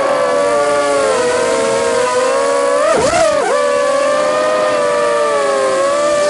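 Electric motors and propellers of an RC multicopter heard from on board: a steady buzzing hum made of several close pitches that drift against each other. About three seconds in, the pitch dips sharply and swoops back up.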